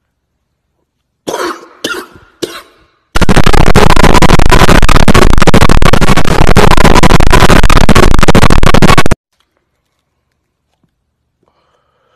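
A man coughs three times in quick succession after a drag of smoke. Then an extremely loud, clipped, distorted blast of noise runs for about six seconds and cuts off suddenly.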